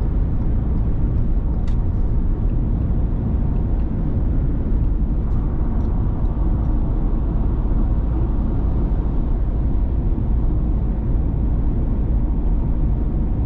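Steady low rumble of a Ford Transit Custom diesel van, with a few faint ticks.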